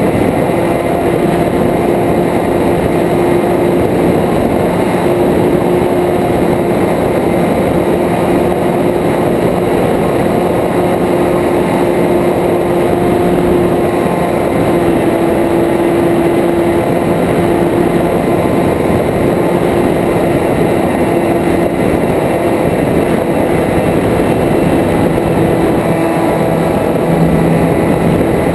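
A small propeller aircraft's engine running steadily in flight, its pitch drifting slightly, mixed with a constant rush of wind over the wing-mounted camera.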